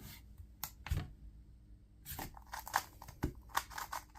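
A 2x2 speed cube being turned by hand, its plastic pieces clicking: a few separate clicks at first, then quick runs of clicks from about halfway through.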